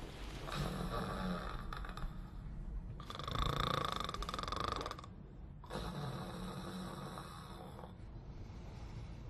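A man snoring in three long, rasping snores, each lasting about two seconds, with short pauses between them.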